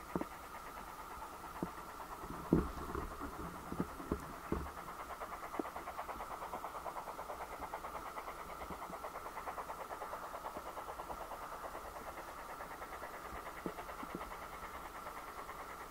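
Distant steam locomotive working a passenger train, its exhaust beats coming as quick, even chuffs. A few low thumps sound a few seconds in.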